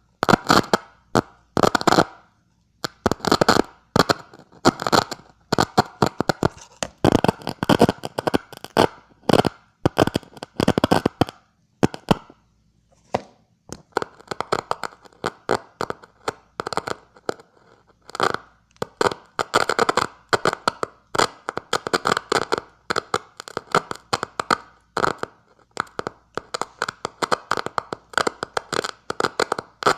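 Crackling radio static switched on and off in irregular short bursts, like hand keying, each burst a rapid stream of clicks. There is a pause of about two seconds roughly halfway through.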